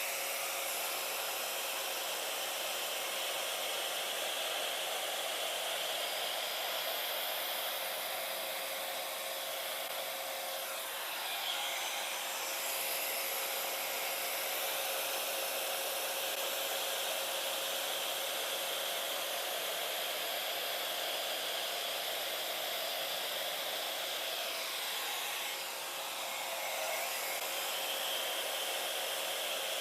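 Hair dryer blowing steadily with an airy rush and a steady hum, its sound shifting briefly twice as it is moved, used to push poured acrylic paint across a canvas in a blow dryer Dutch pour.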